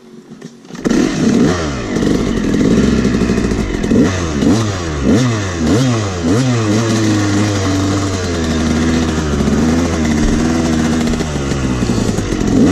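Yamaha 250 two-stroke dirt bike engine revving hard as the bike pulls away about a second in. The pitch climbs and drops again and again through the gear changes, runs steadier in the middle, then revs up again near the end.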